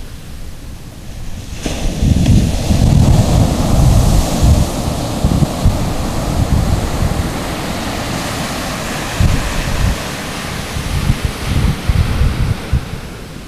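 Pacific Ocean surf breaking and washing up a sandy beach, a steady rush that swells up about two seconds in. Uneven low rumbling from wind buffeting the microphone runs under it.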